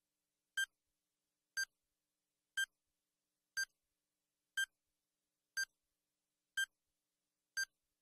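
Countdown timer sound effect beeping once a second, eight short electronic beeps with silence between them.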